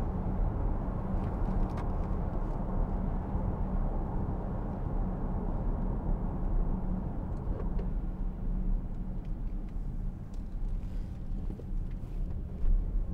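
Inside the cabin of a 2013 Range Rover 3.0 TDV6 diesel on the move: a steady low drone of engine and road noise, with tyre hiss from the wet road surface.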